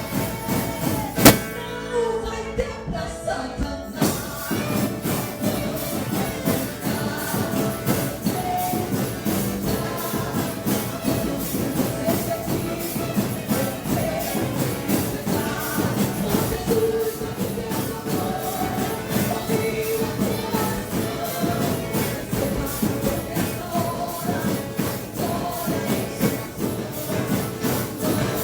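Drum kit playing a fast, steady beat with bright cymbal strokes under a gospel song, with a sung melody over it. A single sharp hit stands out about a second in.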